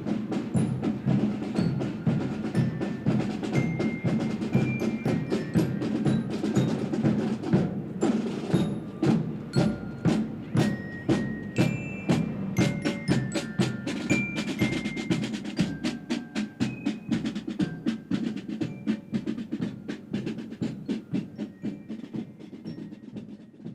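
A parade drum band playing a fast marching rhythm, with a xylophone picking out short bright notes over the drums. The band fades away gradually toward the end.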